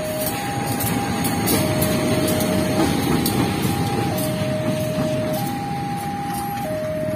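Railway level-crossing alarm sounding its two-tone warning, switching between a higher and a lower note about every 1.2 seconds, over the low rumble of a CC201 diesel-electric locomotive running light past the crossing.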